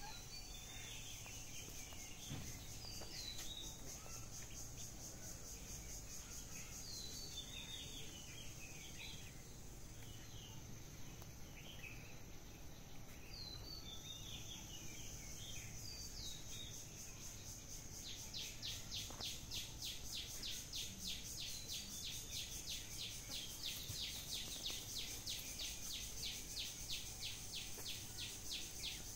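Outdoor ambience: small birds chirping in short, falling calls through the first half, over a steady high insect whine that turns into a fast, even pulsing trill about two-thirds of the way in.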